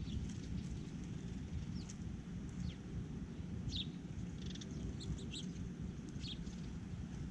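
Small birds giving short, high chirps every second or so over a steady low outdoor rumble.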